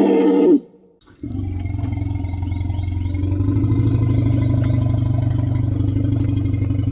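A loud pitched call ends about half a second in. After a short gap comes one long, steady low rumble with a fast, even pulse: an elephant rumble sound effect.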